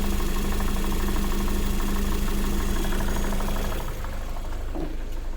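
Lada Vesta 1.8 four-cylinder petrol engine running with a rapid rhythmic knock from inside the engine. About four seconds in the sound gets quieter and a steady hum drops out.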